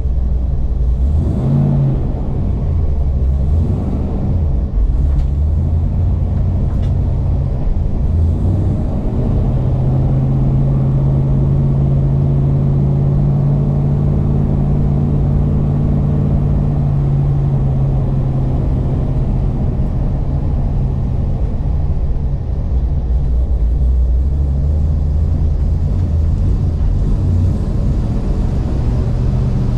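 Engine of a 1000 hp Holden VF Commodore race car running loud and continuously. Its note changes over the first several seconds, holds at a steady pitch for about twelve seconds, then changes again near the end. The exhaust is loud enough to exceed a 95 dB track noise limit.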